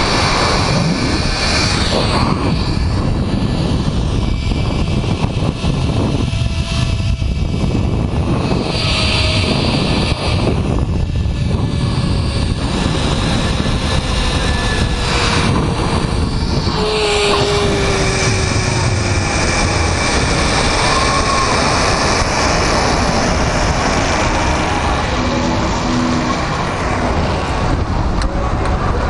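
Steady rush of wind over the rider's camera microphone, mixed with the running whir of the zip-line trolley on its cable, with a faint whine that slides slowly down in pitch about halfway through.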